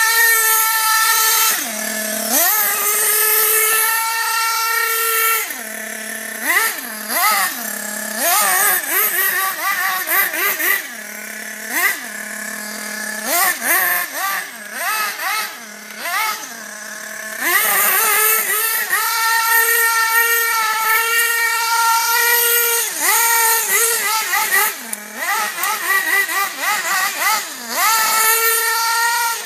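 Nitro RC buggy's small internal-combustion engine revving hard and dropping back to a low idle again and again, with quick rising and falling whines as the throttle is blipped and released.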